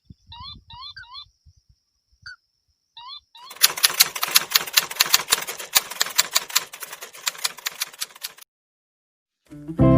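Crake (burung tikusan) calls: short rising notes, some in quick threes, followed about three and a half seconds in by a rapid dry clicking rattle of roughly eight clicks a second that lasts about five seconds and stops abruptly. Music begins right at the end.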